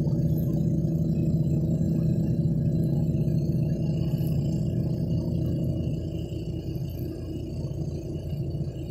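A sailboat's engine running steadily under way, a constant low drone that grows quieter from about six seconds in.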